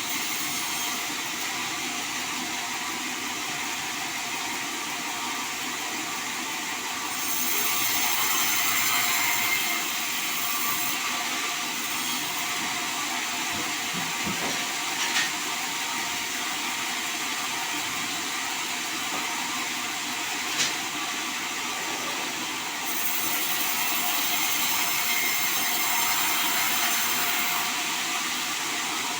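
Band sawmill running steadily as its blade cuts through a sonokeling (Indian rosewood) log, a continuous hissing saw noise that grows louder twice for a few seconds. Two sharp ticks come about five seconds apart near the middle.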